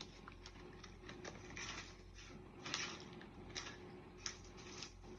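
Faint, irregular light clicks and short rustles of hands handling small objects and packaging, such as beads.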